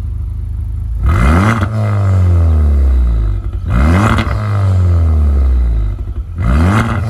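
Honda Civic Type R FK8's turbocharged 2.0-litre four-cylinder revving through an ARMYTRIX cat-back exhaust with a decatted downpipe, exhaust valves open. It idles, then is blipped three times, about a second in, near four seconds and near the end, each rev rising fast and falling back slowly toward idle.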